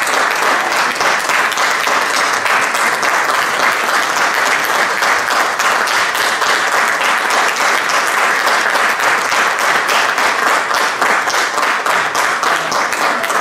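Audience applauding: dense, steady clapping from a concert hall crowd as the performers take their bows.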